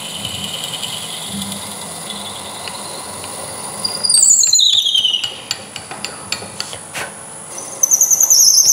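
Wood lathe turning slowly, about 600 RPM, while a 5 mm drill bit in a tailstock Jacob's chuck is pushed by hand into the end of the spinning wood blank. The bit squeals in high, falling glides about four seconds in and again near the end, with a few light clicks between.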